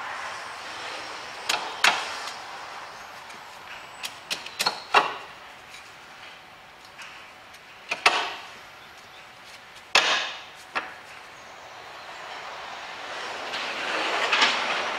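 Sharp knocks and clicks from the lower wishbone being fitted loosely to the front hub carrier: about seven separate knocks a second or few apart, some in quick clusters.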